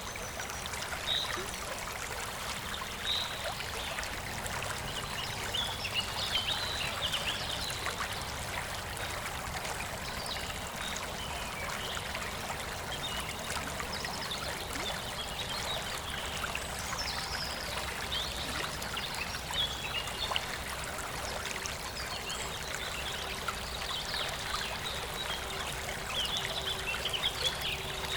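Steady rush of a flowing stream, with small songbirds chirping in short, scattered calls over it.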